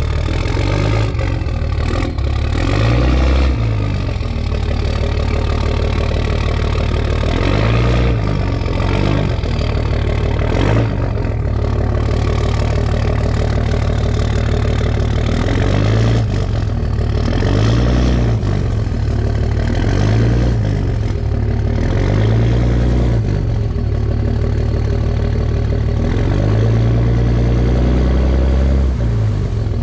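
Ram pickup's Cummins inline-six turbodiesel engine revving up and down over and over while the rear-wheel-drive truck spins its tires on crusty snow over ice, unable to climb the driveway with the boat trailer.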